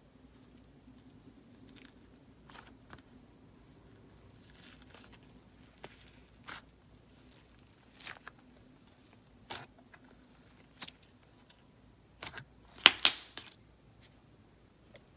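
Clay slime squished and pressed by hand, giving scattered sticky clicks and crackling pops, with a louder burst of crackles near the end.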